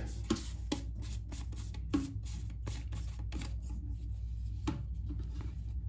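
Light irregular clicks and crinkles of a flexible corrugated plastic fume-extractor hose being handled and twisted in the hands, over a steady low hum.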